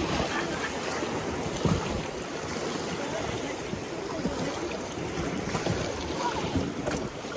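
River water rushing around a raft, with wind buffeting the microphone and a few short sharp knocks or splashes.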